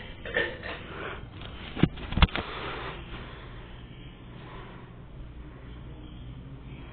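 Casablanca Four Seasons III hugger ceiling fan switched on at low speed: two sharp clicks about two seconds in, then the steady whoosh of the spinning blades over a low motor hum.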